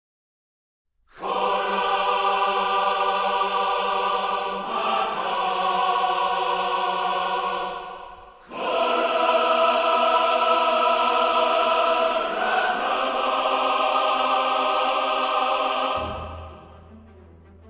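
Choir-like music in long held chords: two sustained phrases of about seven seconds each, separated by a brief break, each shifting to a new chord partway through. It fades near the end into a quieter low hum.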